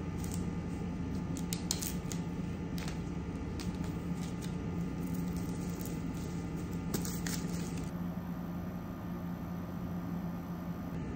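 Hands handling and unwrapping a cardboard headphone box and its plastic wrap: scattered crinkles, taps and scrapes over a steady low hum, the handling noises stopping about seven seconds in.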